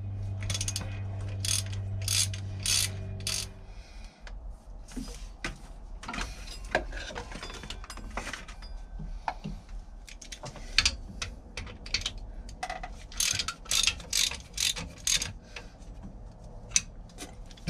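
Socket ratchet wrench clicking in runs of strokes as bolts on the engine's accessory bracket are worked loose. A steady low hum underneath stops suddenly about four seconds in.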